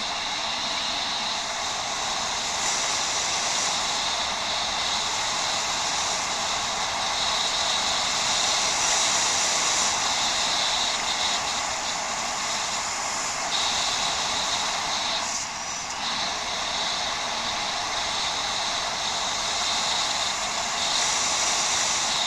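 Steady rushing noise of a bicycle being ridden off-road, heard from a helmet- or head-mounted camera: tyres rolling on an unpaved track and air rushing past. It swells and eases slightly and dips briefly about two thirds of the way through.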